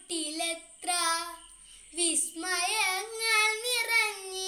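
A young boy singing a Malayalam poem unaccompanied, in long held phrases with a short breath about two seconds in.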